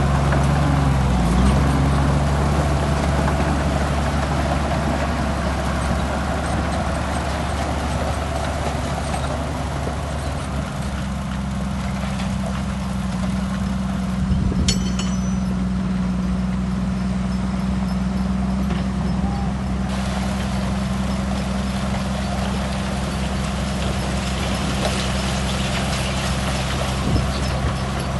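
Diesel engine of heavy earthmoving machinery running steadily, its pitch shifting a little near the start and again about ten seconds in, with a single sharp click about halfway through.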